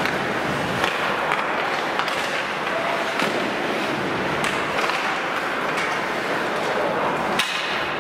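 Ice hockey play in a rink: a steady wash of skates scraping the ice with scattered sharp clacks of sticks and puck, the sharpest one near the end.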